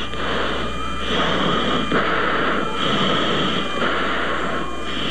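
Radio static on an air-traffic radio recording: a steady hiss over a low hum, its tone shifting in blocks every half second to a second, with no voice on the channel.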